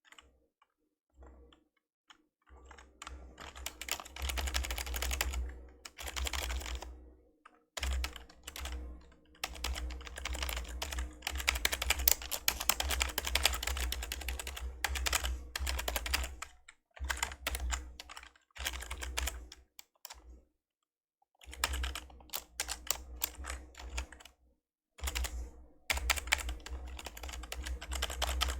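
Typing on an old membrane computer keyboard: rapid bursts of soft key presses, broken by short pauses of a second or so.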